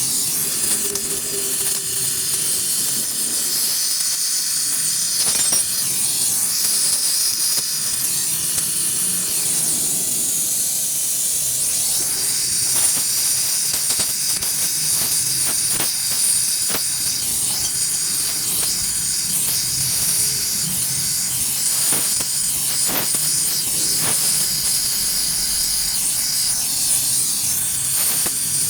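Gas welding torch flame hissing steadily while cast aluminium is torch-welded, with a few faint clicks now and then.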